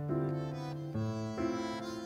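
Background music: a slow melody of long held notes over a low bass note, changing note about a second in.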